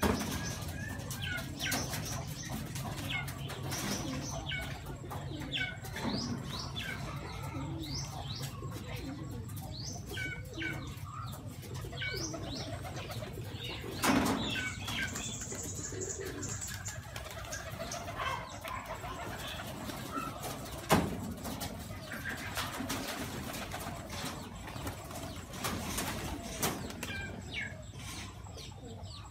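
Domestic pigeons feeding as a flock, with wings flapping and low cooing, and many short high bird chirps throughout. Two sharp knocks stand out, one about halfway through and one about two-thirds through.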